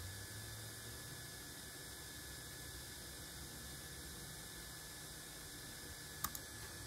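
Steady low electrical hum with a faint hiss, broken about six seconds in by two quick, close-together clicks, like a mouse button being clicked.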